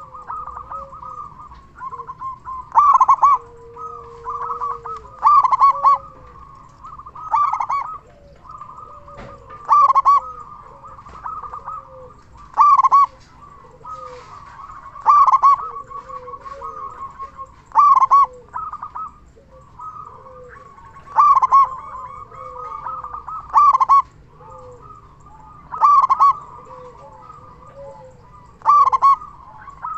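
Zebra dove (perkutut) cooing steadily, with a run of rapid notes around a loud phrase about every two to three seconds, and softer, lower coos between.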